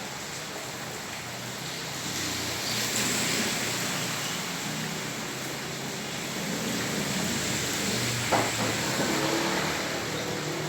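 Rain falling on a flooded street while a vehicle passes through the standing water, its tyres swishing through it. The sound swells twice, and there is a brief sharp knock about eight seconds in.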